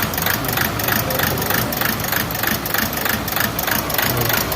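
Toyota Etios diesel engine idling with a misfire, running in an even rhythm of about four beats a second.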